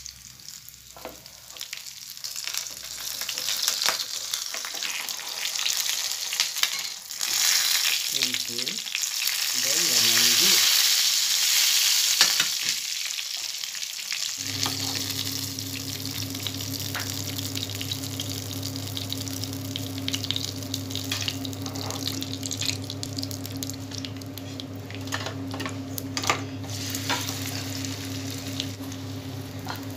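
Masala-coated vanjaram (seer fish) steak sizzling as it shallow-fries in hot oil in a small pan, the sizzle loudest about a third of the way in. A steady low hum starts about halfway and carries on under it.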